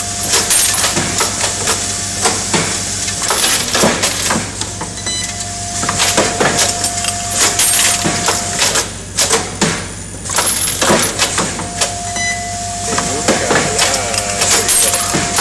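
Automatic welding machine for gas-spring cylinders running through its cycle: pneumatic slides and clamps clacking and hissing, with frequent sharp knocks. A steady tone sounds, stops and comes back twice.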